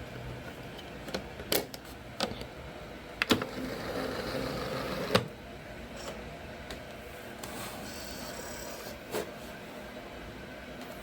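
A CD being loaded into a player: sharp plastic clicks and knocks, with the disc drive's small motor whirring for about two seconds in the middle and again more faintly later, as the disc spins up before playback.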